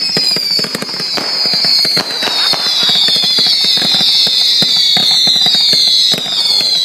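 Firework screamers whistling: several overlapping high whistles, each sliding slowly down in pitch, over a thick rapid crackle of small pops.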